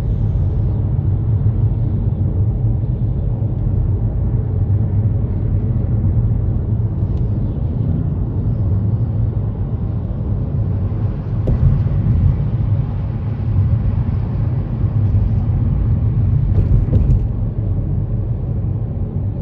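Steady low rumble of a car being driven, with a couple of faint clicks, one about halfway through and one near the end.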